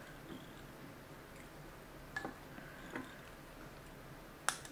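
Faint hand-handling sounds at a fly-tying vise as tinsel is wrapped onto the hook: a few small clicks and taps over low room noise, with one sharper click near the end.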